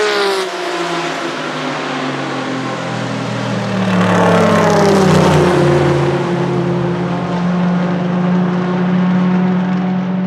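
Racing car engines at full throttle passing close by. One engine's note drops in pitch as the car goes past at the start. About four seconds in, another car sweeps by, its note rising then falling, and it settles into a steady high-revving drone as the car pulls away down the straight.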